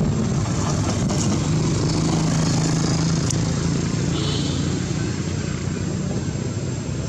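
A motor vehicle engine running with a steady low hum that eases off near the end, and a short high-pitched squeak about four seconds in.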